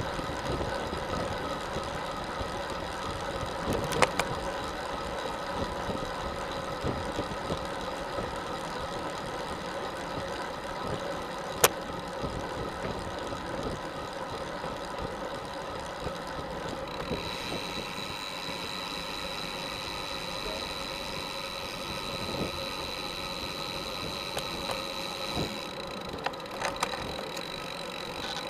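Road bicycle in motion heard through a camera mounted on the bike: a steady mechanical hum of tyres and drivetrain on asphalt, with two sharp clicks and, from about halfway on, a thin high whine.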